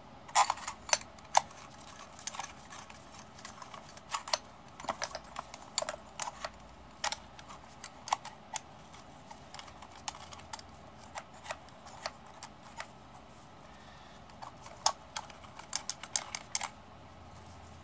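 Irregular light metal clicks and clinks as the bolts and housing of an old starter motor are handled and fitted by hand during a loose reassembly.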